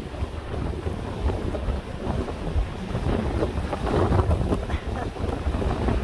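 Strong gusting wind buffeting the microphone, over the noise of rough surf.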